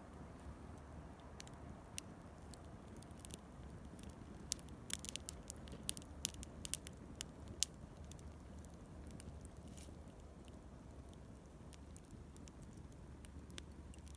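Campfire crackling: scattered sharp pops and snaps, coming thickest about halfway through, over a soft steady background noise.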